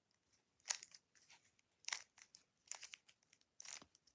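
Rubik's Cube layers being turned by hand: faint quick plastic clicking and clattering, a sharper turn about once a second with lighter clicks between.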